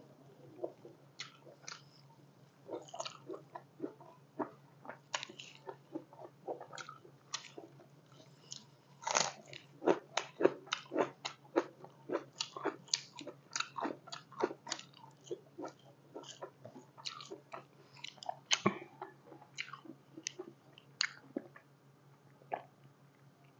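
A person chewing mouthfuls of spicy pork curry and rice: irregular mouth clicks and chewing noises, busiest in the middle and thinning out near the end, over a steady low hum.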